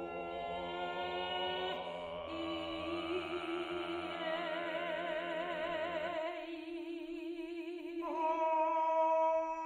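Mezzo-soprano and bass singing long, overlapping held notes without words, some with a wide, regular vibrato and some straight-toned. The low held note stops about six seconds in, and a new straight, steady note enters near the end.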